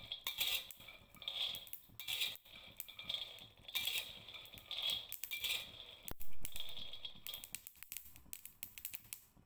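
Peanuts dry-roasting in a wok, stirred with a metal spatula: repeated strokes of the nuts rattling and scraping across the pan, with a sharp knock about six seconds in. The stirring stops near the end.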